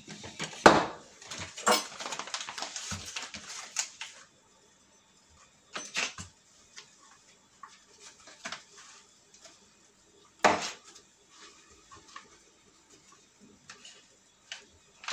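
Kitchen knife scraping butter onto baguette slices and knocking against a wooden cutting board: a busy run of scraping and clicks for about the first four seconds, then a few sharp knocks around six and ten seconds in, with small clicks between.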